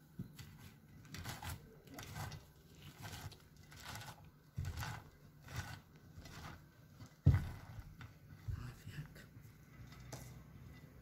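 Hands crumbling and rubbing crisp, dry flatbread into crumbs in a ceramic bowl: repeated soft crackling and rustling, with one sharper knock about seven seconds in.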